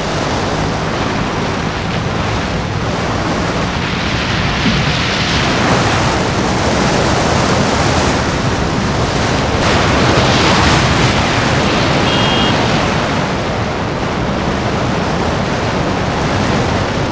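Wind rushing over the microphone of a rider on a moving motorcycle, with the engine faint underneath. It is a steady noise that swells twice, then eases.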